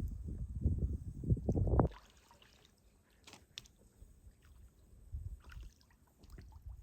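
Wind buffeting the microphone with a low rumble that stops about two seconds in. After that it is quiet, with faint water dripping and small splashes.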